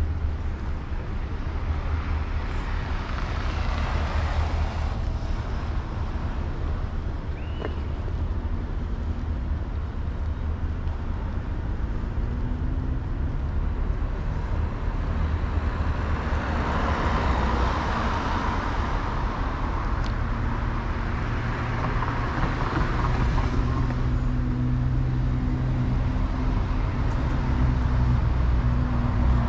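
Street traffic: a constant low rumble with two vehicles passing, one a few seconds in and one around the middle. From about two-thirds of the way through, a vehicle's engine runs steadily close by.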